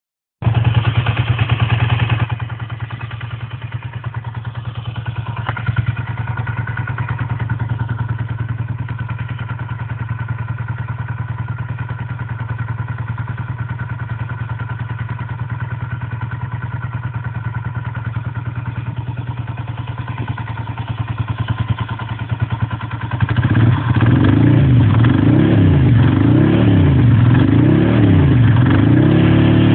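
Ducati Monster 620i's air-cooled 90-degree V-twin running through aftermarket Remus silencers: a steady idle, then from about 23 seconds in the throttle is blipped again and again, the revs rising and falling in quick repeated swells.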